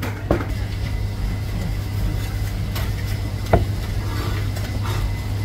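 Two sharp knocks of a Chinese cleaver chopping roast pork belly on a thick wooden chopping block, about three seconds apart, the second louder, over a steady low hum.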